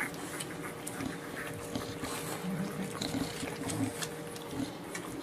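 Two-week-old bulldog puppies nursing: soft, wet suckling and smacking with many small clicks, over a faint steady hum.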